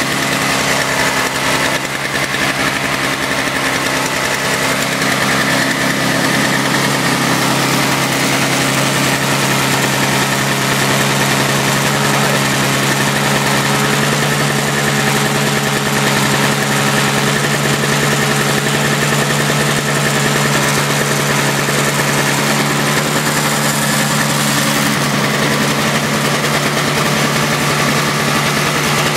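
Toro CCR 2450 snowblower's small two-stroke engine running steadily with an even drone. It is being left to run to burn off the old gas-and-oil mix still in it, smoking heavily.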